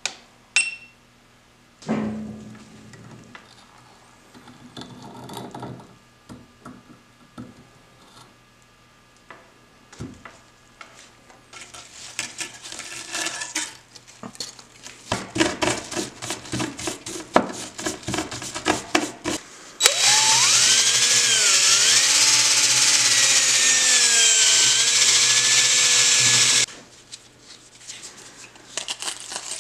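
Steel wool scrubbing loosened black rust off an electrolysis-cleaned steel hammer head, in a run of quick rubbing strokes. Then a power wire brush runs hard against the head for about six seconds, its pitch wavering.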